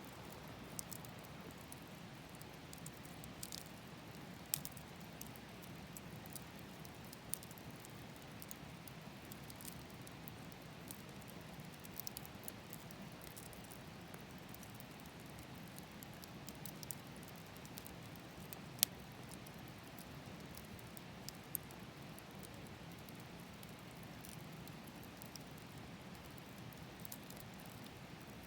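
Bonfire burning with irregular sharp crackles and pops over a faint low steady rush; one pop stands out, about nineteen seconds in.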